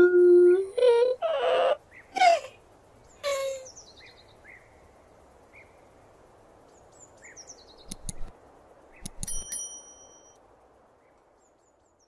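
Turtle vocalising: drawn-out whining squeals with falling pitch, then a few short hissing puffs. Faint chirps and a couple of sharp clicks follow, and the sound fades out near the end.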